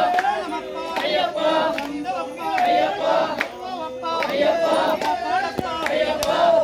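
A group of Ayyappa devotees chanting in unison, repeating a short sung praise phrase over and over. A few sharp clicks cut through now and then.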